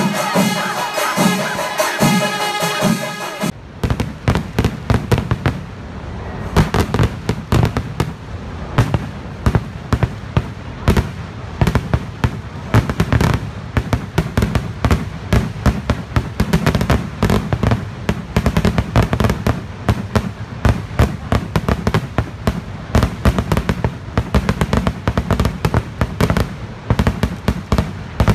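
Music cuts off suddenly about three seconds in. Then a long fireworks barrage follows: rapid cracks and bangs, several a second, going on without a break.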